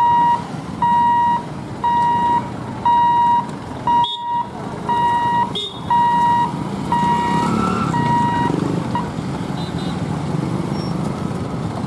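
Level-crossing warning buzzer beeping about once a second, one steady high tone, as the electric lifting barrier rises; it stops about nine seconds in. Motorbike and other engine noise from road traffic crossing the tracks runs underneath and carries on after.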